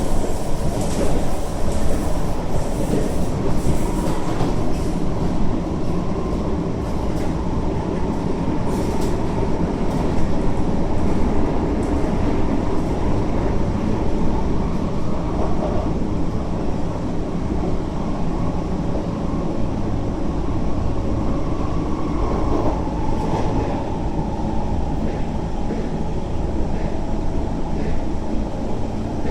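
Kawasaki C151 metro train running at speed between stations, heard inside the carriage: a steady rumble of wheels on rail with a few faint clicks. A thin whine runs through it and drops slightly in pitch about three-quarters of the way through.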